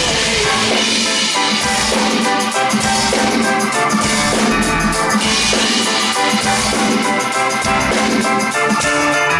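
Amplified band music with a steady drum-kit beat and sustained instrumental chords, no vocals.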